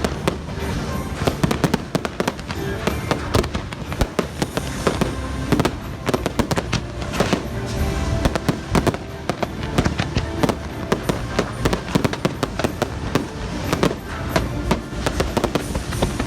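Fireworks bursting and crackling in quick succession, many sharp bangs a second, with show music playing along.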